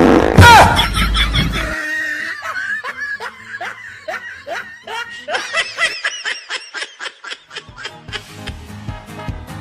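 Snickering laughter, a string of short quick laughs, over background music, after a loud noisy blast in the first second or two.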